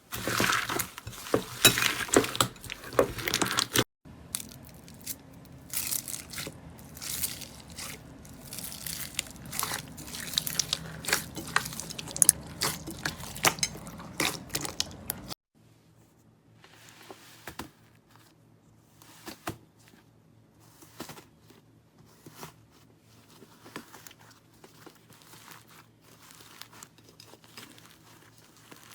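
Slime being squeezed, stretched and poked by hand: sticky crackling and tearing sounds with many small pops. They are loudest at first, change character twice as different slimes follow, and grow sparser and quieter in the last half.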